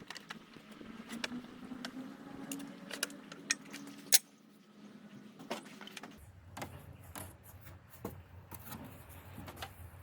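Scattered light clicks and taps, with one sharp click about four seconds in, over a faint steady hum.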